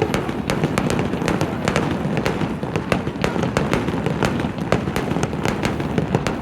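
Fireworks going off: many sharp bangs and crackles in quick succession over a continuous low rumble.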